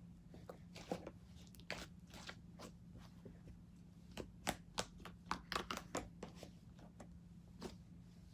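Butter slime being worked by hand, giving a run of sharp wet clicks and pops. They come sparsely at first, then bunch up about four to six seconds in.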